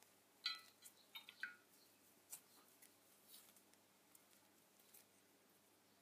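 A cockatiel bathing in a shallow glass dish: faint splashing and flicking of water as it flaps its wet wings. There are a few short ringing clinks in the first second and a half.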